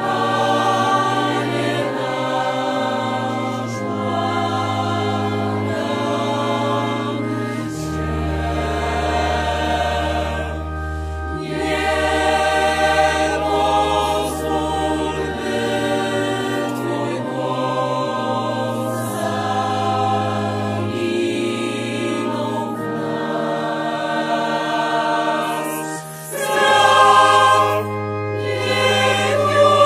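Mixed choir of women's and men's voices singing a slow sacred piece in long held chords that change every few seconds, over deep bass notes. The singing grows louder near the end.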